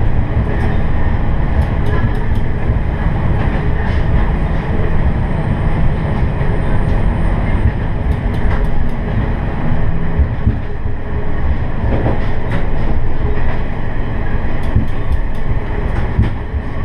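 Diesel railcar running along the line: a steady drone of engine and wheels on the rails, with short clusters of clicks from the rail joints about two seconds in, near the middle and near the end.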